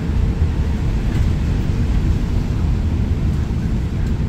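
Cabin noise inside a Chevrolet 4500 ARBOC Spirit of Freedom minibus: a steady low rumble from the bus's engine and running gear.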